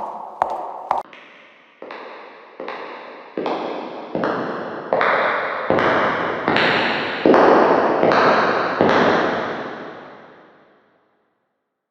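Footsteps: two sharp, hard steps, then a run of about eleven softer, noisier steps at just over one per second that grow louder and then fade out near the end.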